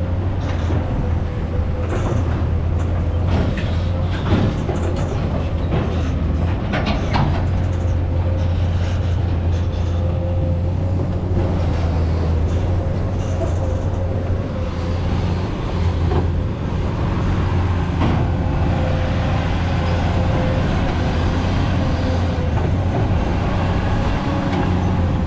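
Truck engine running steadily with a constant low hum, with a few scattered knocks and clicks.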